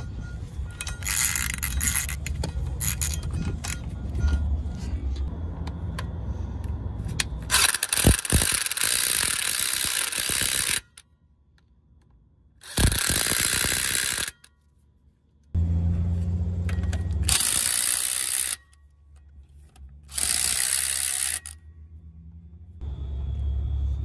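Hand socket ratchet clicking as the bolts holding a new Spicer U-joint to the driveshaft yoke are run down. It goes in several separate spells, each starting and stopping abruptly, with near silence between them.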